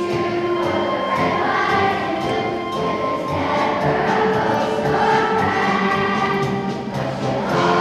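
A children's choir of elementary school students singing together, holding long notes.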